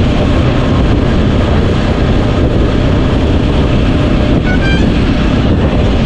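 Jawa Classic motorcycle on the move: its engine and exhaust run steadily under a dense rush of wind and road noise. Two short high beeps sound about four and a half seconds in.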